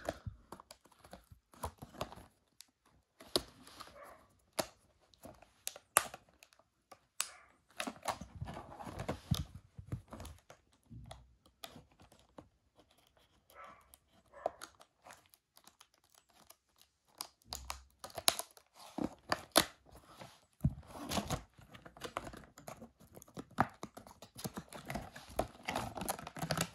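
Hands opening a clear plastic product box: irregular sharp clicks and taps on the hard plastic, with crinkling and scraping as the sealed edge is cut and the paper insert is slid out of the plastic sleeve. A quieter stretch falls in the middle.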